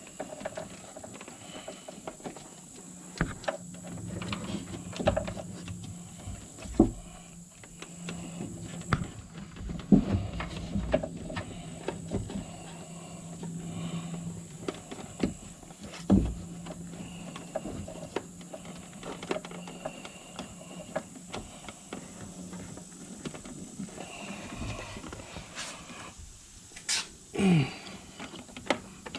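Scattered knocks, clicks and rustling from hands working new speaker wire through the vehicle's body and trim, over a faint steady low hum. About two seconds before the end, a short sound falls in pitch.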